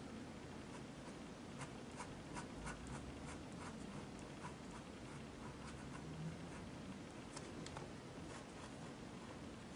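Pen scratching on sketchbook paper in many short, irregular drawing strokes, faint over a steady background hiss.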